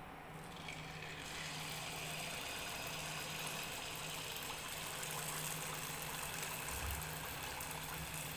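Malpua batter deep-frying in hot oil in an aluminium kadhai: a steady sizzle that begins about a second in as the batter is poured, over a low steady hum.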